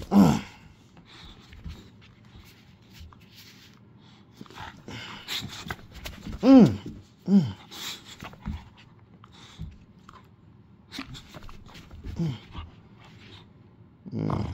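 A dog playing with a rope toy, giving several short whining calls that fall in pitch, with panting and scuffling noise between them.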